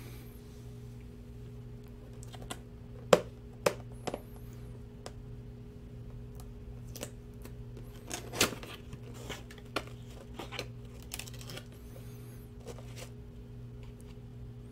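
Cardboard reel box being handled and opened by hand: scattered clicks, taps and knocks of the box and its packing, the sharpest about three seconds in, with paper rustling near the end as the manual comes out. A steady low hum runs underneath.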